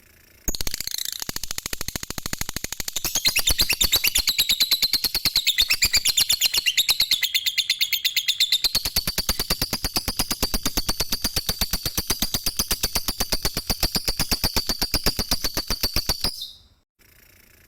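Lovebird singing a long unbroken ngekek: a rapid, machine-like chattering trill of many notes a second. It starts half a second in, dips briefly in pitch midway, and breaks off near the end after about sixteen seconds.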